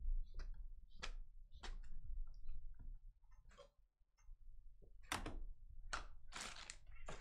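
Light, irregular clicks and taps from cards and plastic card holders being handled on a tabletop, about eight in all and loudest near the end, over a low steady hum.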